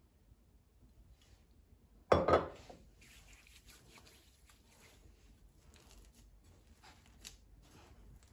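A loud double knock of something set down on a kitchen counter about two seconds in, then soft clicks and rustling from handling kitchenware and ingredients.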